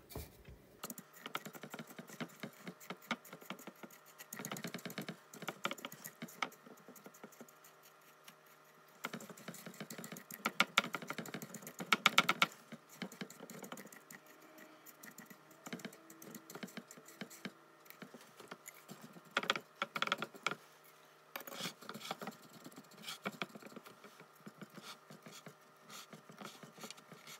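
Small glass measuring cup pressing graham cracker crumbs into a glass pie dish: irregular clicks and taps with soft crunchy scraping, coming in short spells, loudest about ten to twelve seconds in.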